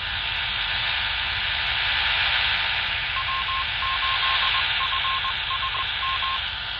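Baofeng UV-5R handheld radio's speaker hissing with static as a repeater answers. About three seconds in, a string of short, high beeps in Morse code plays for about three seconds: the repeater's identification, the sign that the 5-watt call reached the repeater.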